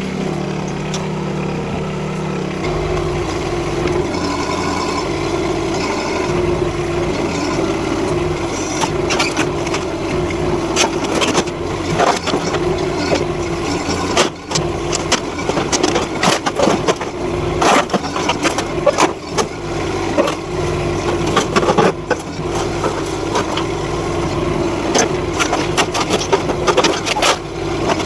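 NT18K mini excavator's diesel engine running steadily as the arm works. From about nine seconds on come repeated sharp cracks and bangs as the bucket breaks boards and sheet metal out of an old shed.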